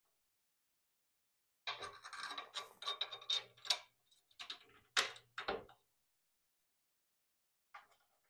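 Wooden shelf board rubbing and scraping against a metal bookshelf frame as it is worked into place. It runs for about four seconds starting about two seconds in, with two sharp knocks near the middle, and a faint clack near the end.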